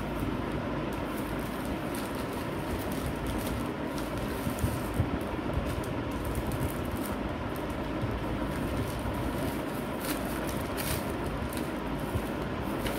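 Steady low rumble and hiss of background noise, with a few brief crinkles of plastic packaging being handled, mostly in the later part.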